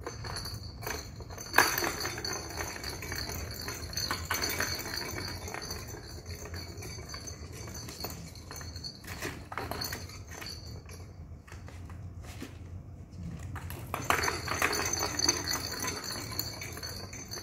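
Ball rolling and rattling around the plastic track of a round cat-scratcher toy as a kitten bats at it, with a high jingling ring and repeated light knocks; the jingling fades in the middle and comes back strongly near the end.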